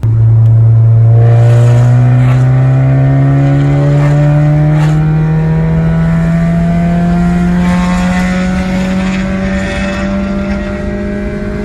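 Peugeot 306 four-cylinder engine running loud through a straight-piped exhaust with the catalytic converter and muffler removed. Its pitch rises slowly and steadily as the revs climb.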